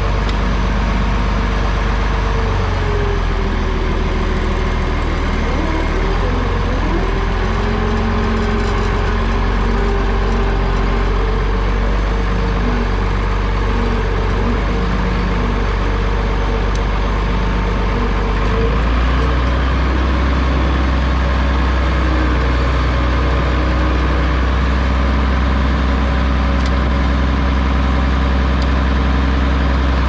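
International Harvester 1066 tractor's six-cylinder diesel engine running steadily after its first start following a winter of sitting. About two-thirds of the way through, the low rumble grows heavier.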